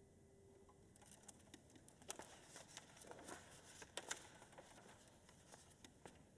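The last note of a classical (nylon-string) guitar rings out and fades away within the first second. Then comes faint rustling and clicking of sheet-music pages being turned on a music stand, loudest about two and four seconds in.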